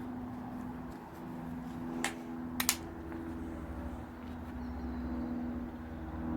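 Two sharp clicks about half a second apart, a couple of seconds in, over a steady low hum.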